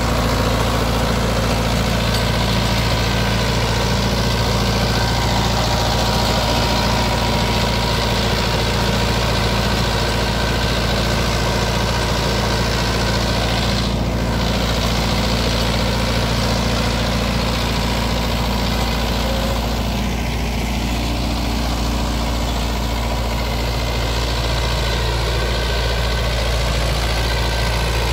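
Mahindra Yuvo Tech+ 575 tractor's diesel engine running steadily, driving a Maschio rotavator that tills the soil.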